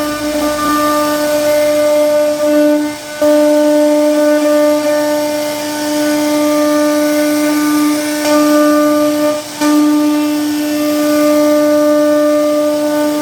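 CNC wood router's spindle whining at a steady high pitch as it carves wood, with a hiss of cutting; the whine dips briefly twice.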